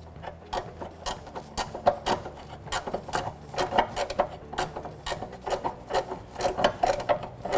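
Ratcheting wrench clicking in short, uneven runs as it turns out a 14 mm bolt on the rear upper shock mount bracket, the pawl clicking on each back-swing.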